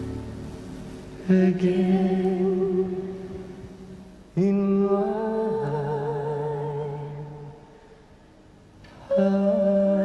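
Slow, soft music of long held notes with a slight waver. New chords come in about a second in, again after four seconds and near the end, and each one fades away before the next.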